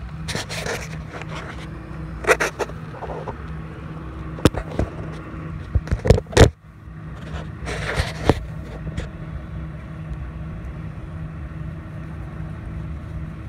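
An engine running steadily, heard as a low hum throughout, under close scrapes, knocks and handling noise as a hand moves around the trailer's air brake chamber. The loudest knocks come about six seconds in, with smaller scrapes about two and eight seconds in.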